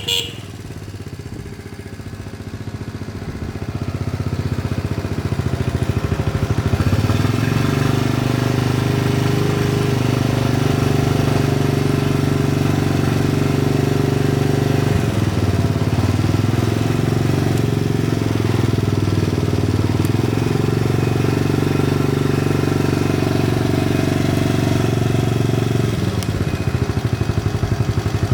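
Small single-cylinder four-stroke engine of a restored 1980 Honda Super Cub 50cc, running. Its speed builds over the first few seconds, then it runs steadily, with a brief dip about halfway through.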